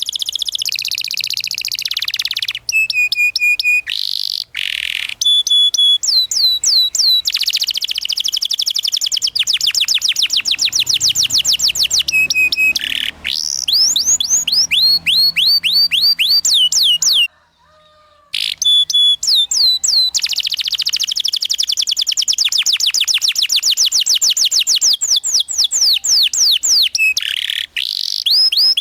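Domestic canary singing long, rapid rolls of repeated high notes that sweep downward, several a second, broken by a few held whistled notes. The song pauses briefly about seventeen seconds in, then starts again.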